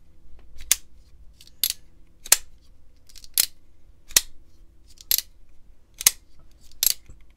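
Demko AD20.5 folding knife, in new raw aluminum scales, being opened and closed by hand: about eight sharp metallic clacks, roughly one a second, as the blade snaps open and shut and the lock engages.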